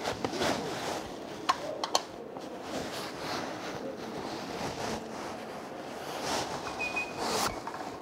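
Soft rustling and patting of hands pressing and folding a thin sheet of rolled dough on a floured counter, with two light, sharp clicks about a second and a half and two seconds in.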